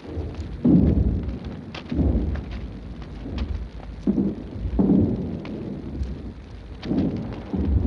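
Distant artillery: low rumbling booms every second or two, each fading over about a second, with scattered faint clicks.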